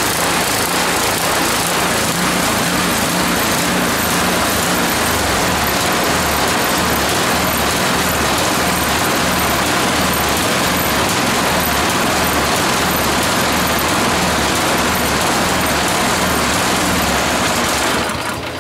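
A small single-cylinder gas engine running steadily at a constant speed. Its sound eases off slightly near the end.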